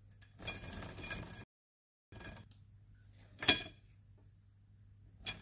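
A pleated window blind being pulled down: about a second of rustling and scraping, then a sharp click, and a softer click near the end.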